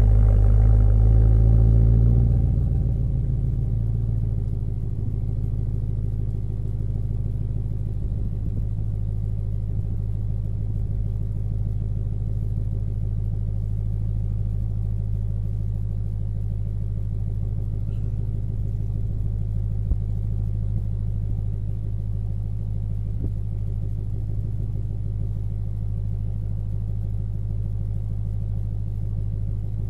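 BMW E90 M3's V8 idling through a Meisterschaft GT exhaust during its cold start: louder for the first couple of seconds, then easing down into a steady, deep idle.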